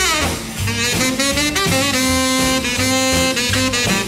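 Instrumental break of a mid-1950s mono rock and roll record: a saxophone lead slides down at the start, then plays long held notes over a steady bass and drum beat.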